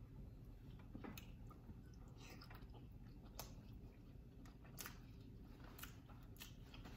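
Faint wet chewing and lip-smacking of someone eating king crab meat, with about six soft clicks spread through the stretch.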